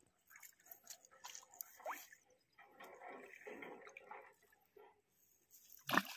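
Faint rustling and small drips of water as a fish in a landing net is pulled through branches at the water's edge, then a sharp splash near the end as the fish thrashes in the net at the surface.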